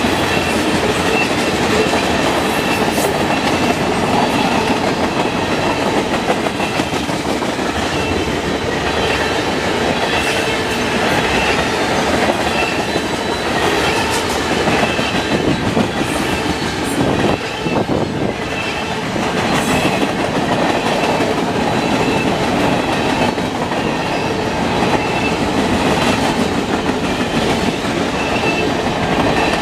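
Freight train rolling past close by: a steady rumble and clatter of wheels on the rails, with a faint high squeal that comes and goes about once a second.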